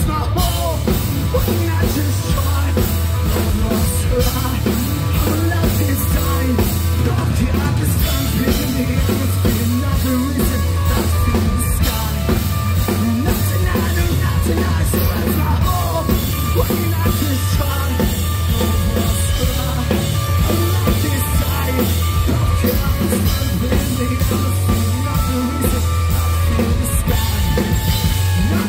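Live rock band playing loudly through a PA, with a full drum kit and distorted guitars: an instrumental stretch of the song with little or no singing.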